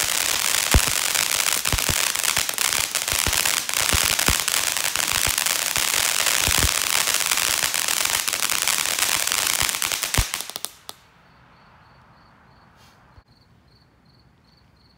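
Ground fountain firework spraying sparks with a steady loud hiss and many sharp crackling pops. It cuts off about ten seconds in, leaving a faint, regular high ticking.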